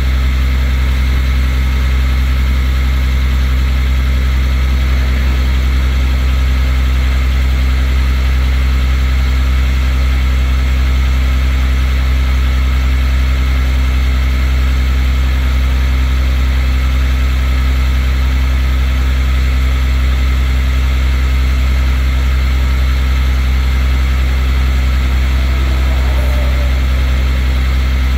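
Rollback tow truck's engine idling steadily with a deep, even hum while the winch chain lets a vehicle down the tilted bed.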